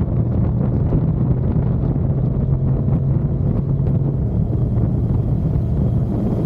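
Loud wind buffeting on the microphone of a moving motorcycle, with the engine's steady hum underneath.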